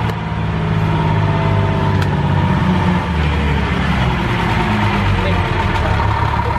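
Wooden passenger ferry's inboard engine running steadily under its open engine hatch, a low hum with a steady higher tone over it. The passengers take it for some problem with the boat.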